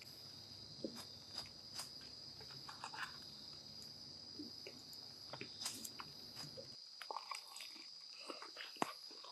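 Faint, steady trilling of bell crickets, with scattered soft crunches and clicks of someone chewing crispy fried chicken (karaage).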